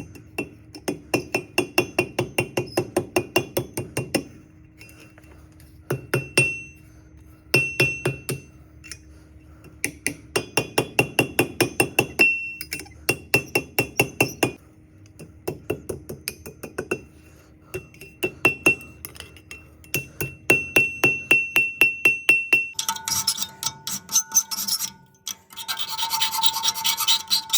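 Hand hammer striking hot steel on an anvil in quick runs of several ringing blows a second, with short pauses between runs. Near the end the hammering gives way to a scraping, rubbing sound over a steady hum.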